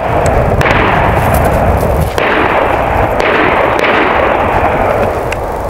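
Big-bore PCP air shotgun venting air in a loud, continuous hiss after something goes wrong with the shot, the rush surging again several times.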